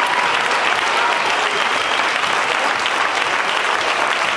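Audience applauding, a dense, steady clapping that neither builds nor fades.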